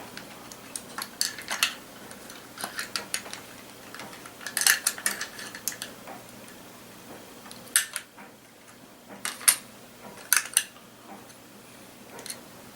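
Steel parts of a Mossberg 500 pump shotgun clicking and clinking as they are fitted back into the receiver during reassembly. The clicks come irregularly, in small clusters, with the sharpest ones about five and about nine and a half seconds in.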